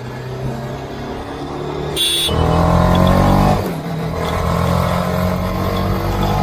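RR 310 motorcycle's single-cylinder engine running under the rider. About two seconds in there is a brief break with a short high-pitched sound, then the revs climb loudly under acceleration. It eases off briefly about a second and a half later and pulls again.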